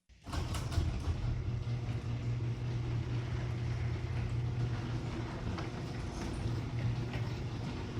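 Garage door opener running while the door travels on new nylon rollers, freshly lubricated: a steady low buzz from the opener with only faint clicks, the smooth, quiet running of a door in good order.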